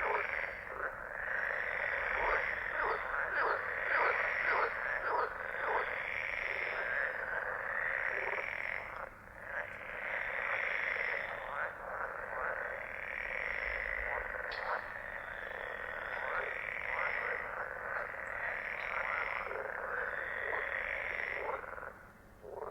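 A chorus of many frogs croaking at once, dense and continuous, with calls overlapping in rapid repeats. It thins briefly about nine seconds in and dies away just before the end.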